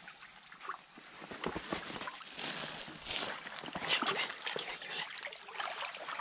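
Feet wading through a shallow creek, with irregular splashing and sloshing of the water over the trickle of the stream.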